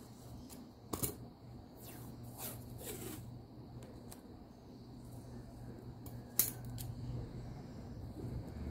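Packing handling sounds: two sharp snips or clicks, about a second in and again near six and a half seconds, with light scraping of cardboard and tape between them.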